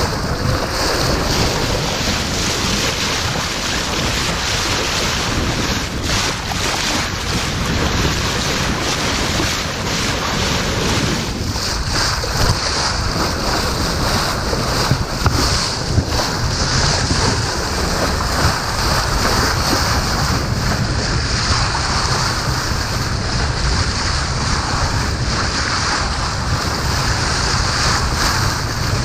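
Wind buffeting the microphone and sea water washing along a moving sailboat's hull, a steady noise.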